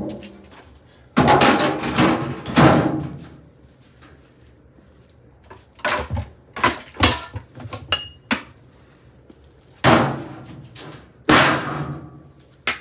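Hamilton Beach microwave oven being smashed. There are heavy metallic bangs with a ringing tail: three loud blows in the first few seconds, lighter knocks and rattles in the middle, then two more loud blows and a sharp final hit near the end.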